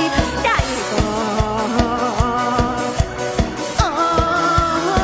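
Live Isan mor lam song: a woman singing over a band with a steady fast beat.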